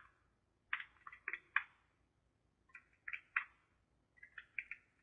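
Faint, scattered short scratching and rustling sounds, a dozen or so small noises in loose clusters.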